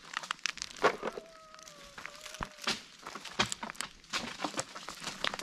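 Dry leaves and stony soil crunching and rustling as acorns are picked up by hand, in an irregular run of sharp clicks and scrapes. A faint drawn-out call sounds in the background from about a second in.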